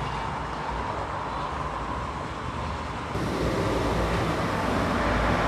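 Steady background rumble of road traffic, stepping up in level about three seconds in.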